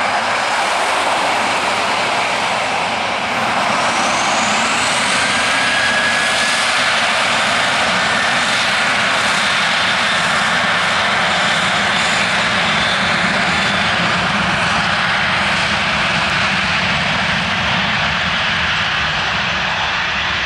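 Boeing 737-800's CFM56-7B jet engines spooling up for the takeoff roll: a thin whine rises about four seconds in, then loud, steady jet noise as the aircraft accelerates down the runway.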